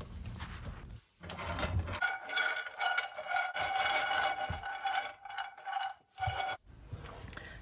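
Roasted almonds rattling and sliding in a frying pan as the pan is lifted off the hob and shaken, with a steady high ringing tone through most of it.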